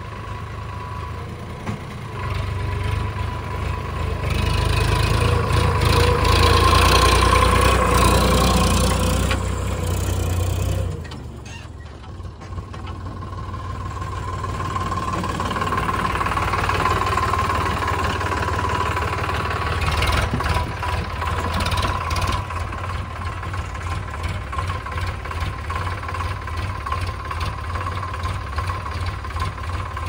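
Sonalika DI 42 RX tractor's diesel engine running while it hauls a loaded soil trolley. It grows louder, dips briefly partway through, then settles into a steady, even beat near the end.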